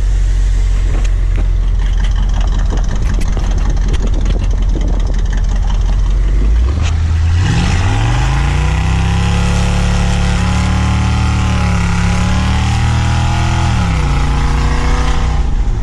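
Small-block Chevy 350 V8 with straight-piped dual exhaust running low and steady, then revving up under acceleration about seven seconds in. It holds high revs for several seconds and eases off near the end.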